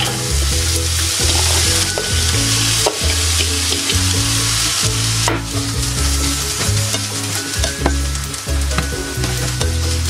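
Chopped onion sizzling in hot oil with garlic in a frying pan, just tipped in and being stirred with a spatula, with a few clicks of the spatula against the pan. The sizzle is loudest for the first five seconds or so, then eases.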